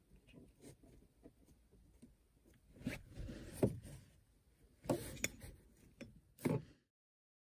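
Plastic seat-belt buckle clip being fitted onto the belt webbing by hand: light ticks and rubbing, a sliding scrape about three seconds in, then several sharp plastic clicks. The sound cuts off abruptly near the end.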